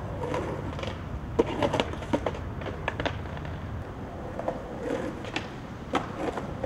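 Skateboard rolling on rough concrete, the wheels rumbling, with several sharp clacks of the board striking the concrete. The loudest clack comes about a second and a half in.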